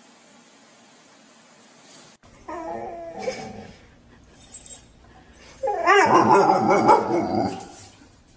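Faint hiss at first, then a dog whining and yipping in pitched, wavering calls that begin about two and a half seconds in. The loudest and longest stretch comes about six seconds in.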